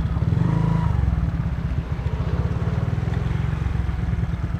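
Motor scooter engine idling with a steady, rapid low pulsing.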